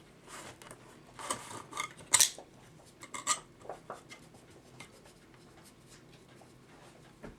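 Metal scraping and sharp clicks as a clock mainspring and C-clamp are worked by hand. The scrapes and clicks are busiest in the first three seconds, with one loud click a little after two seconds, then thin out to a few light ticks.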